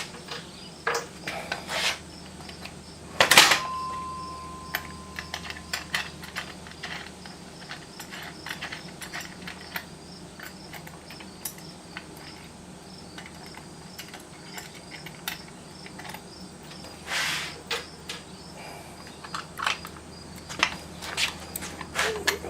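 Small metal parts clinking and knocking as bolts and washers are handled and fitted into holes in a steel stand frame. About three and a half seconds in, a sharp metallic clank rings on briefly as a single tone.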